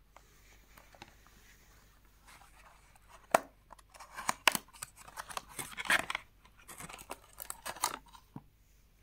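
Small cardboard watch box being handled and opened. Starting about three seconds in comes a run of sharp clicks, scrapes and paper rustles as the box is worked open and the watch slides out.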